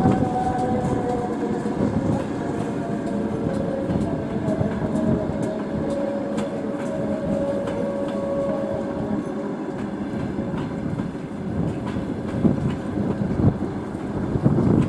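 Passenger train coaches rolling slowly past as the train arrives, their wheels clicking over rail joints, with a thin steady squeal through the first half.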